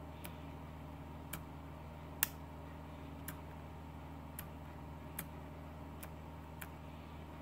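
Sony RX100 compact camera's mode dial being turned one detent at a time: eight small sharp clicks, roughly one a second, the loudest a little over two seconds in, over a faint steady hum. The dial, its contacts cleaned and greased, now latches properly at each mode.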